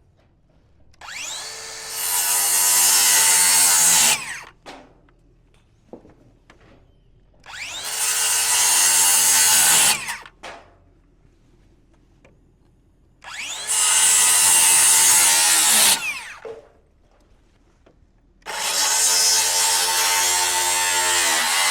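Reciprocating saw (Sawzall) cutting off wooden truss tails, four separate cuts of two to three seconds each. The motor's pitch rises as each cut starts and falls as it stops, with a few small knocks in the pauses between cuts.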